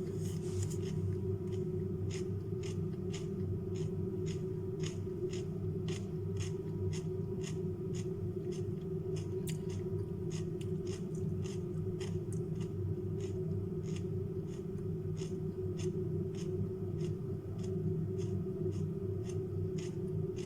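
Crisp crunching of raw carrot and cucumber being chewed close to the microphone, about two crunches a second, over a steady low hum.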